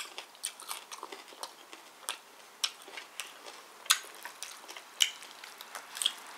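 Eating sounds: irregular soft, wet clicks and smacks from chewing and from fingers pulling at a whole roast chicken, a few sharper ones about every second.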